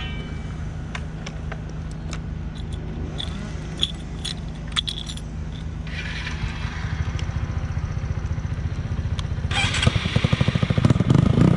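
Small single-cylinder 125cc motorcycle engine idling steadily, with a few light metallic clicks and jangles about halfway through; then it picks up and gets louder, revving hard near the end.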